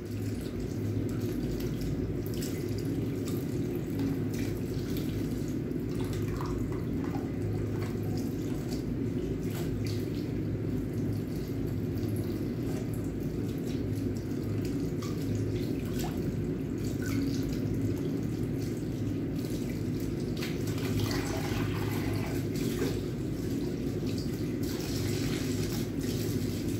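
Tap water running steadily into a basin, the stream splashing over a cat's wet fur as it is washed, with scattered small splashes and clicks.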